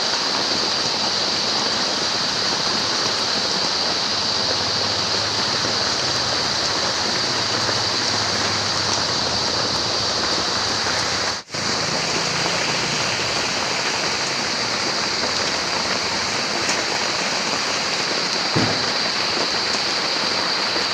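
Steady rain falling outdoors, an even continuous hiss. It cuts out for a split second about halfway through, and there is a single faint knock near the end.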